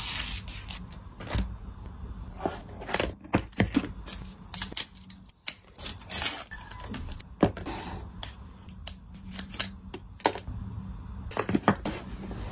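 Unboxing handling sounds of a MacBook Air: the protective sheet peeled off the screen, the power adapter and its paper wrap handled, and the cardboard box and insert rustling, with many sharp taps and clicks scattered throughout.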